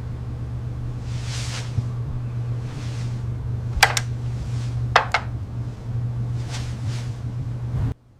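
Indoor room ambience: a steady low hum with a few soft swells of hiss and two sharp clicks about a second apart, cutting off suddenly near the end.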